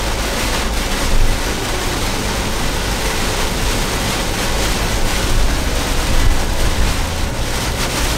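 Heavy rain pelting the windshield and body of a moving vehicle, heard from inside the cab: a loud, steady hiss over the low rumble of the road and engine.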